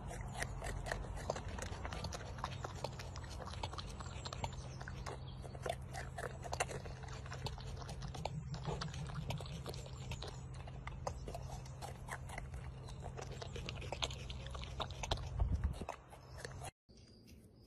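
Porcupine chewing and biting into a whole tomato: dense, irregular crunching and smacking clicks over a low steady hum, cut off near the end.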